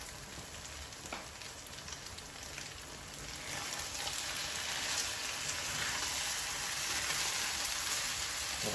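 Pork and tofu sisig frying in a nonstick pan on a gas burner: a steady sizzle that grows louder about three and a half seconds in as a spatula stirs it.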